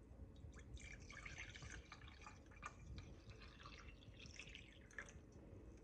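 Coffee poured from a glass coffee-maker carafe into a ceramic mug: a faint, splashing trickle with a few small clicks.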